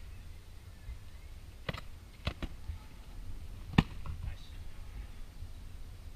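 Padded foam boffer weapons striking a shield in Dagorhir-style sparring: about four sharp knocks, two in quick succession about two seconds in and the loudest near four seconds in, over a low rumble.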